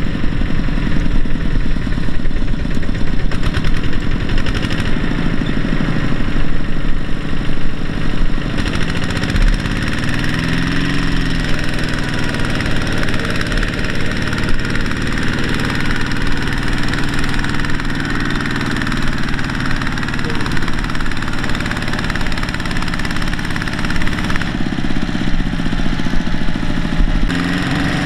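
Kubota two-wheel walking tractor's single-cylinder diesel engine running with a fast, even knocking beat while it pulls a loaded trailer. Its note rises and falls briefly about ten seconds in.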